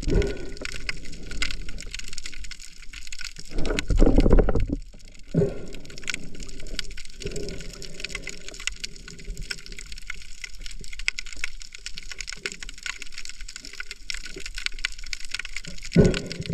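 Underwater sound through an action camera's housing: a steady fine crackle of clicks, with louder low whooshes of moving water about four seconds in and again near the end.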